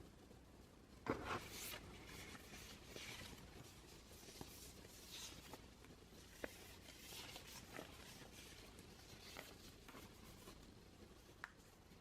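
Faint handling of an iPad box and its packaging: soft rustles of cardboard and paper with scattered small clicks and taps, the loudest rustle about a second in.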